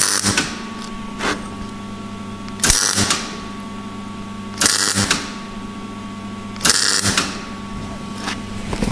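MIG welder laying short runs of weld to attach a Lambda sensor boss to a steel exhaust pipe: four bursts of about half a second each, roughly two seconds apart, with a steady hum in between.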